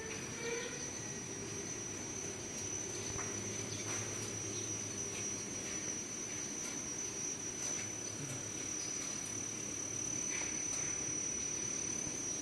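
Automatic flatbread (chapati/tortilla) production line running: a steady mechanical hum from its motors and conveyors, with a thin steady high whine and faint scattered ticks.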